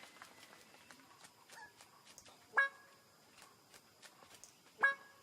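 A bird of paradise giving two short, loud calls about two seconds apart, each a single note rich in overtones, over faint scattered ticking.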